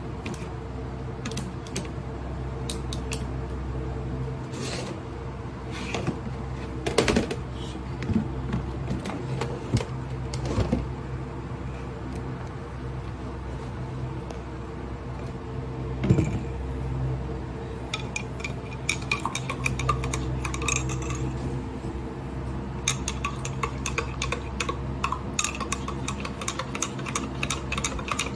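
Metal spoon clinking against a glass mug while stirring a milky drink: scattered knocks in the first half, then a run of quick, rapid clinks near the end, over a steady low hum.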